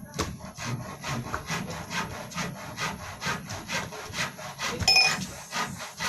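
Hand saw cutting through wood in quick back-and-forth strokes, about two or three a second, with a short metallic ring about five seconds in.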